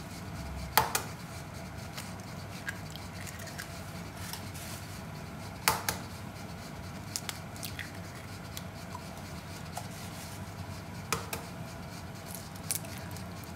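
Eggs being cracked one after another against a bowl and emptied into it: three sharp knocks about five seconds apart, with lighter clicks between, over a steady low hum.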